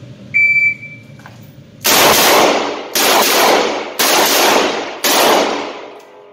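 Four handgun shots about a second apart, each with a long echoing tail in the enclosed range. Before them comes a short ringing clang.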